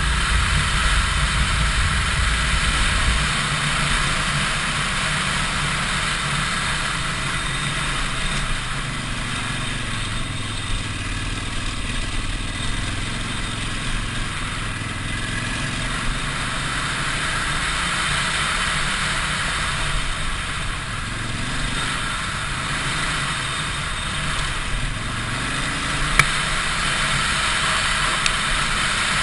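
Big adventure motorcycle's engine running as it rides a dirt trail, the revs rising and falling, heard from a camera mounted on the bike, under a steady rushing hiss. A single sharp knock comes near the end.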